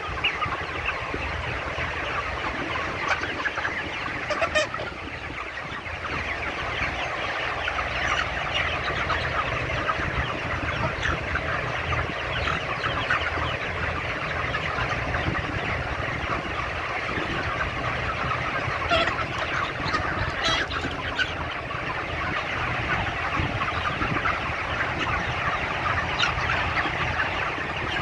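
A large flock of broiler chickens clucking and cheeping together in a dense, continuous chatter, with a few louder calls standing out now and then.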